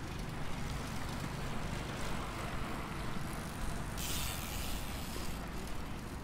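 Steady low outdoor background rumble, with a sudden hiss about four seconds in that lasts about a second and a half and cuts off sharply.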